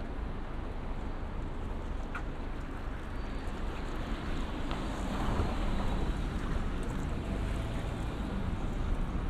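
Street ambience: steady traffic noise with a low wind rumble on the microphone, swelling briefly about five seconds in.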